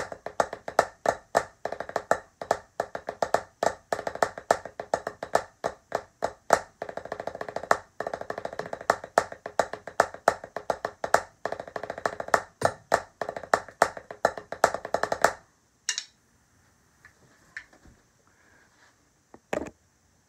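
A drum played with wooden sticks in a syncopated rhythm: crisp single strokes mixed with stretches of very rapid strokes. The playing stops suddenly about fifteen seconds in, followed by a few light knocks.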